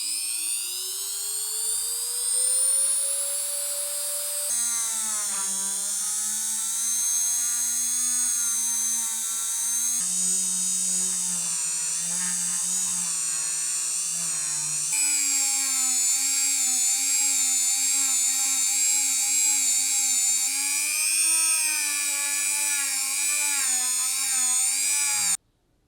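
A small high-speed power tool's motor whining. It spins up with a steadily rising pitch over the first few seconds, then runs with a pitch that wavers up and down as it is loaded. The sound breaks off and restarts several times.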